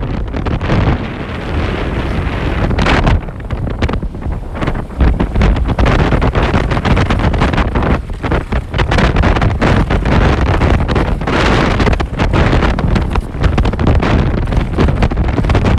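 Wind buffeting the microphone of a camera carried by a moving skier, loud and gusting, mixed with alpine skis hissing and scraping over the snow.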